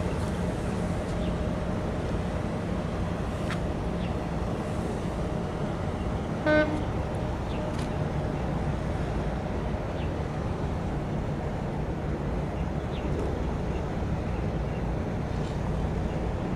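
A single short horn toot about six and a half seconds in, over a steady low rumble.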